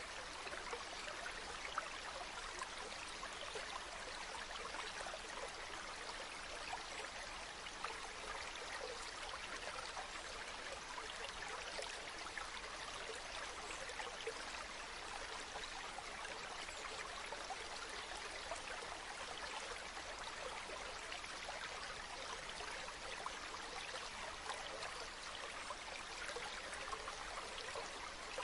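Flowing water: a stream running steadily, with a fine, constant trickle.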